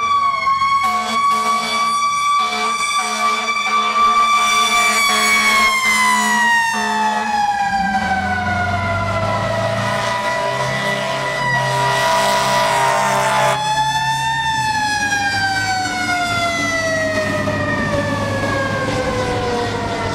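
Fire truck siren wailing: a high steady tone that glides slowly down in pitch, swells back up briefly about two-thirds of the way through, then falls slowly again. A truck engine rumbles beneath it in the second half as the apparatus passes.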